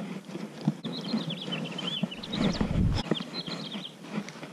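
Small birds chirping in a quick run of short, high, up-and-down notes, with a few sharp clicks and a short low rumble about halfway through.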